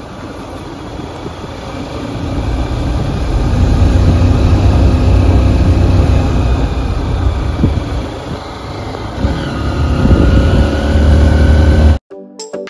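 A motor vehicle driving along a rough dirt road: a steady engine and road rumble that grows louder over the first few seconds, with the engine's pitch rising slowly toward the end. About twelve seconds in it cuts off abruptly and music begins.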